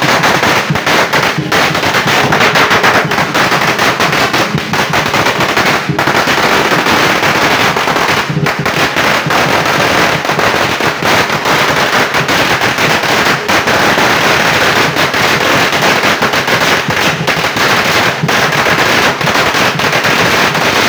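A string of firecrackers going off in a continuous rapid crackle of bangs.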